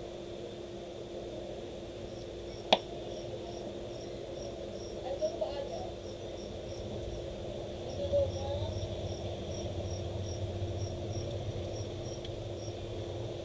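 Insect chirping in a steady rhythm, about two short high chirps a second, over a steady hum, with one sharp click about three seconds in.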